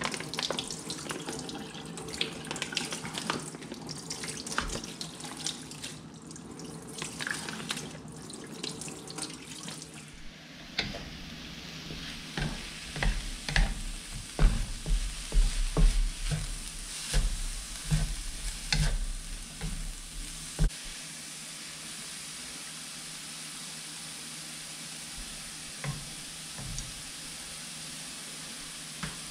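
Tap water running and splashing over a plastic-wrapped pack of frozen milkfish in a stainless steel sink. About ten seconds in, this gives way to frozen riced cauliflower sizzling in a nonstick pan as it thaws and gives off its moisture, stirred with a wooden spatula that knocks and scrapes against the pan for about ten seconds, then a steady sizzle.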